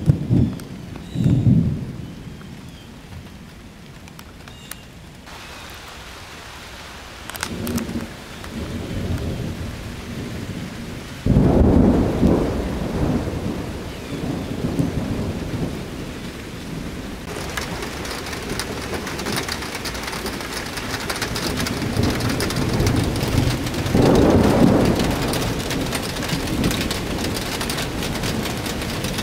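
Thunderstorm: thunder rumbling several times, the loudest roll starting suddenly about eleven seconds in, over falling rain that turns much heavier past the middle.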